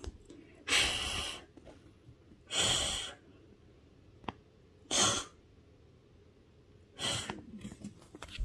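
A person's breath close to the microphone: four short, noisy breaths spaced about two seconds apart.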